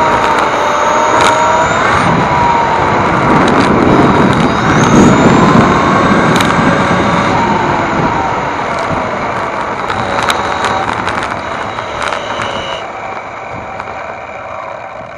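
On-board sound of an Xray T4 1/10 electric touring car at speed: the 13.5-turn stock brushless motor and drivetrain whine, the pitch rising and falling with throttle, over loud tyre and road noise with a few sharp clicks. It grows quieter over the last few seconds.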